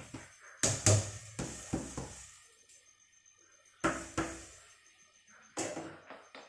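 A red plastic colander knocks against the rim of an aluminium stockpot a few times as malabar spinach is shaken into boiling water, with a loud pair of knocks about a second in and more near the middle and end. Long chopsticks then stir in the pot.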